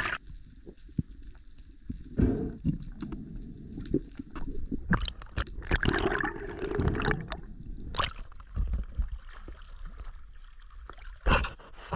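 Water gurgling and bubbling around a submerged action camera as a spearfishing diver swims up, in irregular bursts, with a sharper splash near the end as the camera breaks the surface.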